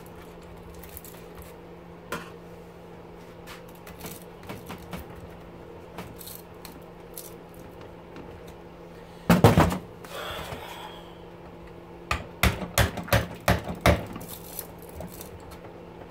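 Steel tool being struck and levered into the copper windings of a small electric motor stator held in a bench vise, cutting the windings out. Light clicks and scrapes, a loud clatter about nine seconds in, then a quick run of about seven sharp metal strikes near the end.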